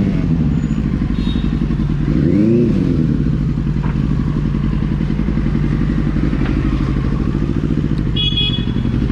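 Benelli 600i's inline-four engine running steadily while the motorcycle is ridden, with a short rise and fall in revs about two and a half seconds in.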